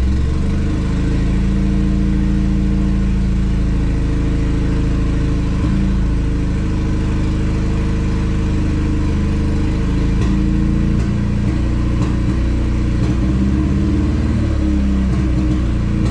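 Turbocharged Honda D16Z6 single-cam four-cylinder running just after it finally started, on a fresh Z6 distributor with its ignition timing and injector dead times not yet set. It runs steadily, with its engine speed shifting a couple of times.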